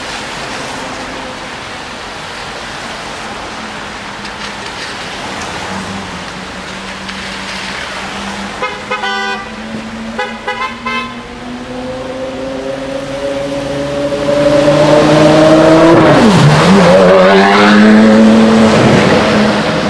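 The Gemballa Mirage GT's V10 accelerating hard, very loud, its pitch climbing, dipping sharply once and climbing again before falling away. Before that comes a low steady engine note, broken by a car horn honking several times.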